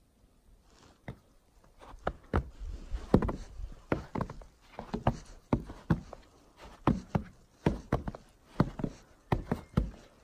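Footsteps on the snow-dusted wooden plank deck of a suspension footbridge: steady walking, each step a knock on the boards, about two a second, starting about a second in.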